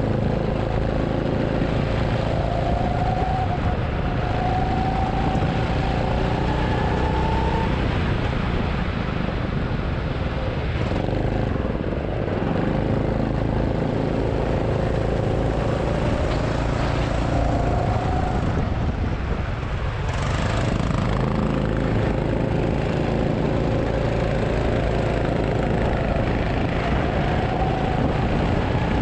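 A go-kart engine running under load. Its note climbs steadily as the kart accelerates, drops back twice as it slows, and climbs again.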